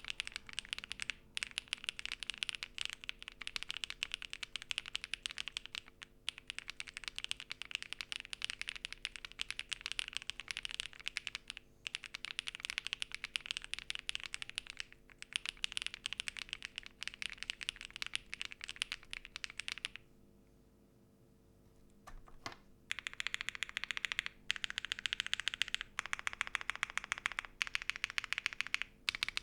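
Fast typing on a MonsGeek M1 V5 mechanical keyboard with prelubed Akko Mirror switches on a polycarbonate plate, fitted with blank keycaps: a dense run of rapid key clacks with short pauses. About two-thirds of the way through the typing stops for about three seconds, then resumes.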